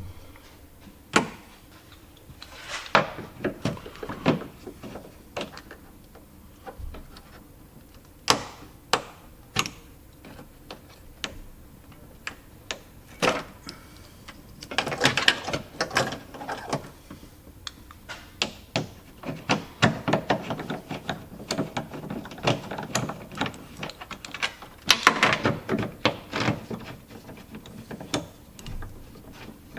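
Hand tools and trim parts clicking, knocking and rattling as the tail light fasteners are worked loose, with a few longer scraping and rattling stretches about fifteen and twenty-five seconds in.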